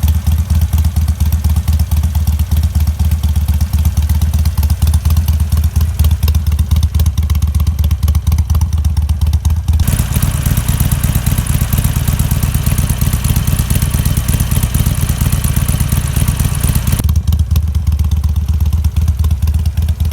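Harley-Davidson Sportster 883 Iron's air-cooled V-twin running steadily through an aftermarket Penzl exhaust. From about ten seconds in to about seventeen seconds the sound turns brighter and harsher, then settles back.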